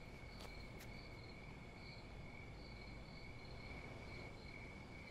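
Faint night insects chirping, crickets by their sound: a steady high trill with a higher chirp pulsing on and off over a low background rumble. A few faint clicks in the first second.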